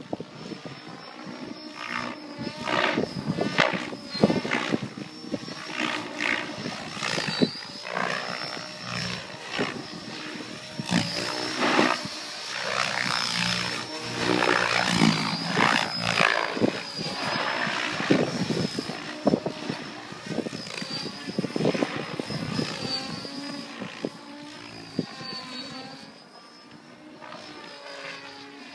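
Mikado Logo XXtreme 800 electric RC helicopter in flight: a steady high whine from the electric motor and the swish of its main rotor blades, swelling and fading over and over as it manoeuvres and passes.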